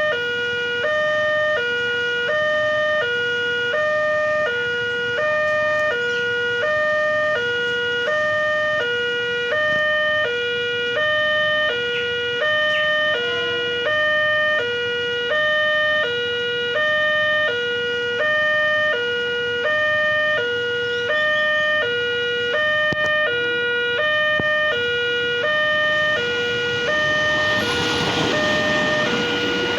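Railway level-crossing warning siren sounding continuously, an electronic two-tone alternating high and low about every half second. Near the end a rushing noise swells up under it.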